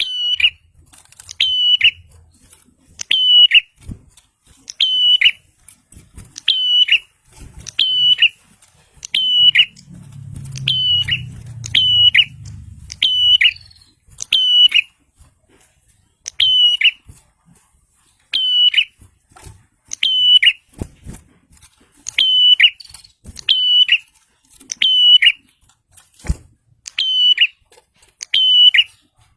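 Prenjak (prinia) giving the same sharp, high call over and over, about one call every one to one and a half seconds, each call with a quick downward sweep. A soft low rumble runs under the calls for a few seconds in the middle.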